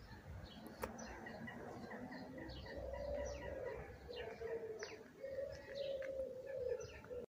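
A pigeon cooing in a low, wavering run through the second half, with small birds chirping high over it throughout.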